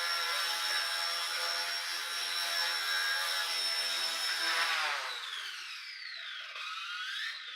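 XK K110 Blast micro RC helicopter's electric motor and rotors whining steadily in a hover; about five seconds in the pitch falls as the throttle comes down, then rises and falls briefly again near the end.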